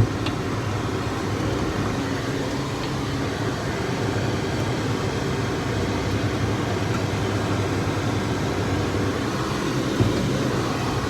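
Vehicle engine running steadily at an even speed, a low hum that holds one pitch, with a brief knock about ten seconds in.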